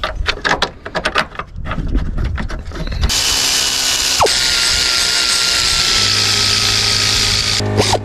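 Light clicks and knocks of a bolt and parts being handled, then about three seconds in a pneumatic air ratchet starts and runs steadily with a loud airy whir, running down a bolt, with a brief let-off near the end.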